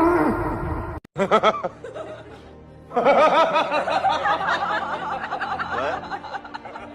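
A falling pitched howl trails off, then after a brief cut come short bursts and about three seconds of rapid laughter over background music.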